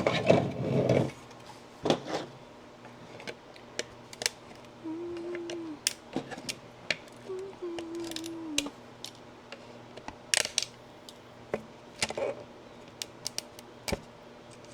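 Plastic 3D-printed tree supports being snapped and pried off printed parts: irregular sharp clicks and cracks, with a louder stretch of handling noise in the first second.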